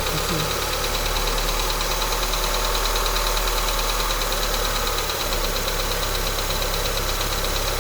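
Mitsubishi Colt Plus engine running steadily after a cold start, with a rapid, even ticking ("da-da-da-da") over it, an abnormal cold-start noise whose cause the owner does not know.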